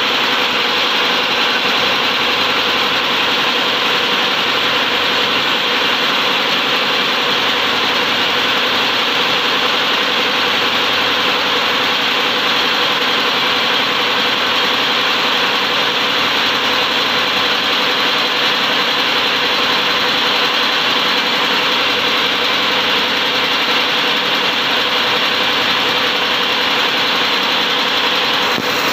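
Four-servo single paper-straw packing machine running, a steady, even mechanical noise with a constant hum under it.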